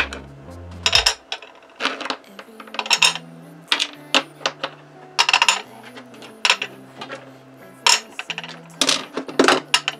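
Small brass bolts and fittings clinking as they are set down one by one onto a steel scale platform and against each other: about a dozen sharp metallic clinks, irregularly spaced.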